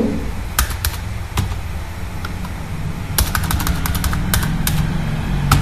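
Computer keyboard keystrokes: scattered single key clicks, thickest in a quick run about three seconds in, over a steady low hum.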